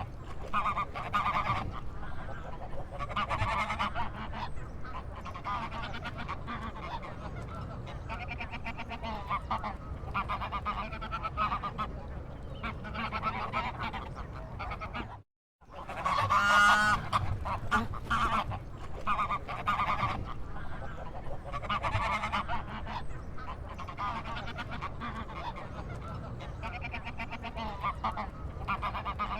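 Flock of waterfowl calling repeatedly, with overlapping honking calls coming in clusters every couple of seconds. The sound cuts out completely for a moment about halfway through, then resumes.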